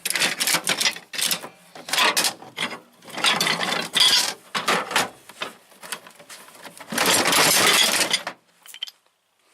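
Metal hand tools clinking and clattering as they are handled and shifted around in a tool box drawer, with a longer stretch of rattling about seven seconds in.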